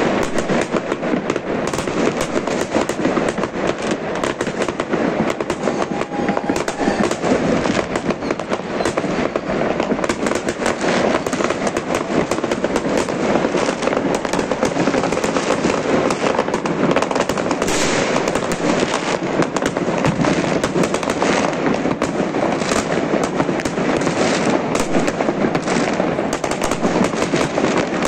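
Many aerial fireworks and firecrackers going off at once: a continuous dense crackle of bangs and pops with no pauses.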